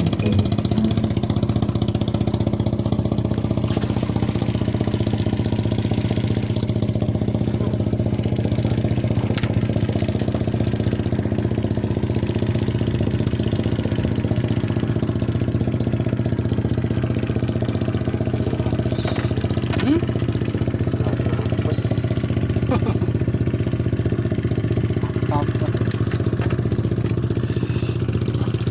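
A small engine running steadily at a constant idle, its pitch unchanging throughout.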